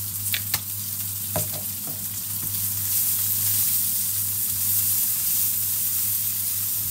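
Sliced onions and garlic sizzling in olive oil in a stainless steel pan, stirred with a silicone spatula that knocks against the pan a few times in the first second and a half. The sizzle grows a little louder about three seconds in.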